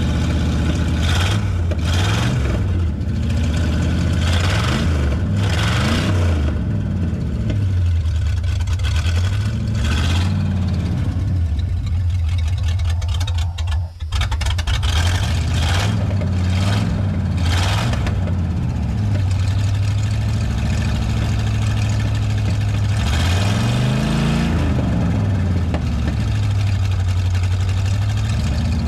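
The engine of a 1988 Ford E250 camper van running and being revved over and over by the gas pedal, its pitch rising and falling between blips; it is heard with the engine cover off. The van has sat for about 20 years and the engine has just been brought back to running after a fuel tank replacement and spark plug work.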